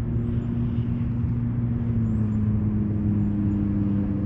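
An engine idling steadily in the background with an even hum, its pitch easing slightly lower about two seconds in.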